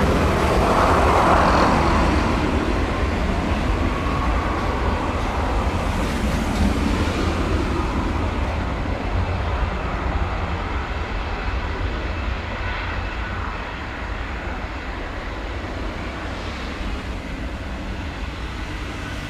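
Sukhoi Superjet 100's two SaM146 turbofan engines at takeoff thrust during the takeoff roll. The noise is a steady jet sound with a deep rumble underneath, fading gradually as the airliner accelerates away down the runway.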